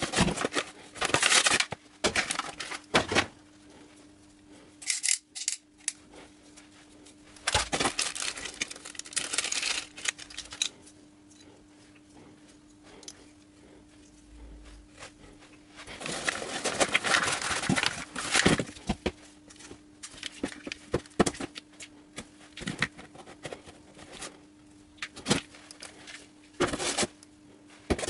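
Hands unpacking a jump starter kit from a foam-lined cardboard box: rustling of a fabric drawstring pouch and cables in bursts, with scattered clicks and knocks of small plastic connectors and fittings. A faint steady hum sits underneath.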